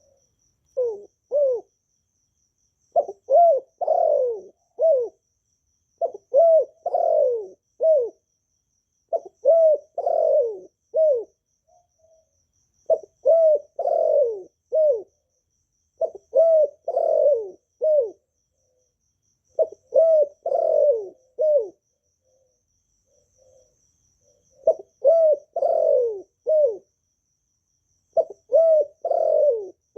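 Spotted dove cooing: phrases of three or four falling coo notes, repeated about every three seconds, with a longer pause about two-thirds of the way through.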